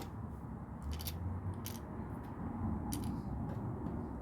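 Plastic LEGO pieces being handled, giving a few light, sharp clicks over a low background hum.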